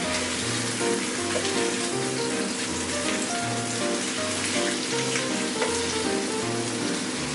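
Marinated pork chops sizzling in a nonstick frying pan as they are turned, a steady hiss with small crackles, under background music.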